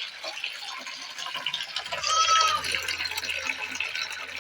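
Water being poured into the goats' drinking bowl, a steady splashing fill. About two seconds in, a short high-pitched call, likely a bird, sounds over it.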